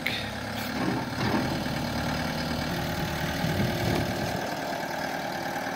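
Gehl 6640 skid-steer loader's diesel engine running steadily as the machine drives down off a trailer ramp.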